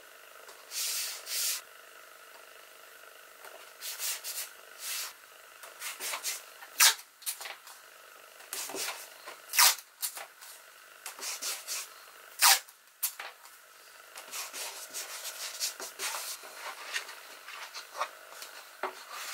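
Hands handling fir boards and a strip of wood on a work table: a string of short, irregular scrapes and rubs, a few of them brief and much louder than the rest.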